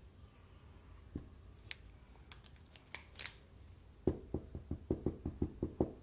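Marker on a whiteboard: a few scattered squeaks and clicks of drawing strokes, then from about four seconds in a quick run of taps, about five a second, as the marker tip dots the board.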